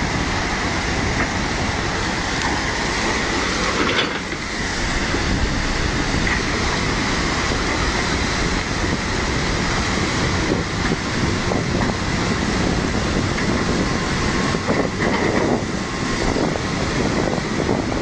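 Steady, loud rushing of a fast-flowing flooded river, mixed with the running of a tracked excavator's diesel engine as it works its arm in the current.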